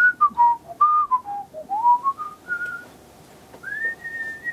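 A man whistling a tune: a string of clear notes stepping up and down, a short pause, then a rising slide into a long held high note near the end.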